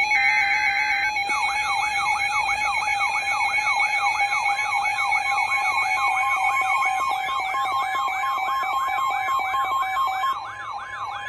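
A short two-tone electronic data burst, like an EAS alert-header signal, then an electronic siren-like tone sweeping rapidly up and down about three times a second over a steady lower tone. A second steady tone joins partway through.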